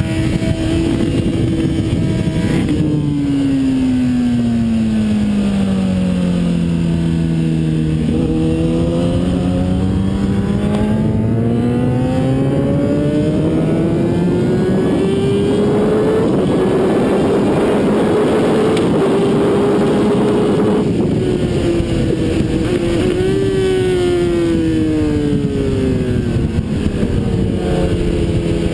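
Kawasaki ZX-10R inline-four engine heard onboard at track pace: the engine note falls through a corner, rises steadily under hard acceleration for about eight seconds with a rush of wind at its fastest, then drops again under braking near the end.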